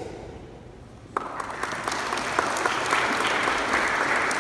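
An audience clapping their hands in applause, breaking out suddenly about a second in and swelling.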